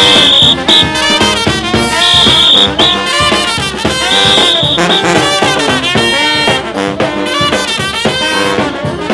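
New Orleans brass band playing: trombone and other horns over sousaphone and drums. A shrill high note sounds in short blasts about every two seconds.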